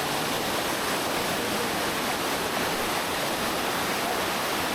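Cascading waterfall water rushing loudly and steadily close to the microphone.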